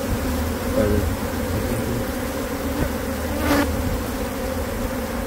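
A mass of honey bees buzzing around their opened nest, a dense, steady hum, with one brief rustle about three and a half seconds in.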